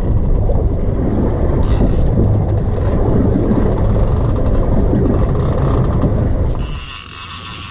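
Loud, steady low rumble of wind and motor noise from a fishing boat under way, picked up by an action camera's microphone. About seven seconds in it cuts to a quieter hiss.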